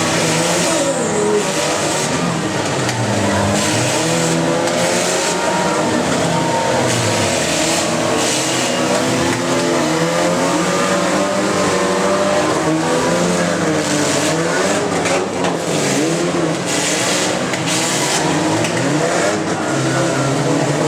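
Several demolition-derby cars' engines revving at once, their pitches rising and falling as they accelerate and back up. Occasional crashes of impacts between cars cut through the engine noise.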